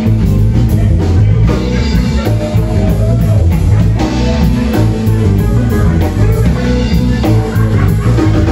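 Live rock band playing a groove: electric guitar, electric bass, drum kit and electric keyboard together, steady and loud.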